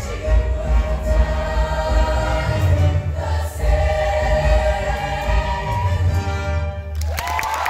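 High school show choir singing with a live backing band, heavy bass under sustained choral lines. About seven seconds in the music stops and the audience breaks into applause and cheering.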